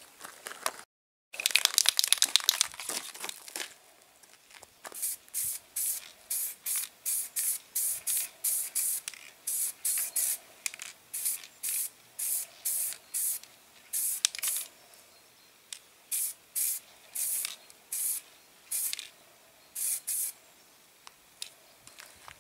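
Aerosol can of primer spraying in many short hisses, about two a second in runs with brief pauses, as a thin coat is laid on. Near the start, after a brief cut, there are a couple of seconds of loud crackling noise.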